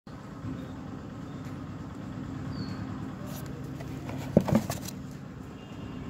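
Steady low machine hum, with a short clatter of two or three sharp clicks and knocks about four and a half seconds in as the plastic syringe gun is lifted out of its box.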